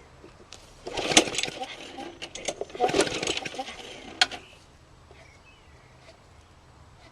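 Briggs & Stratton lawnmower engine pulled over twice on its recoil starter, each pull a short burst of cranking noise with sharp clicks, without the engine catching and running. This is a cold start after months of storage, with oil in the fuel tank.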